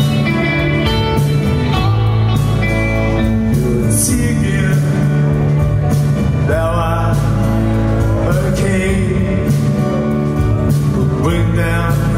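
Live rock band playing a slow song: electric guitar, bass and drums under a male lead vocal.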